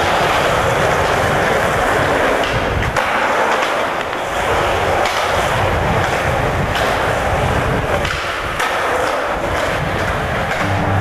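Skateboard wheels rolling fast on smooth concrete: a steady loud roar with a few light clicks as the wheels cross floor joints.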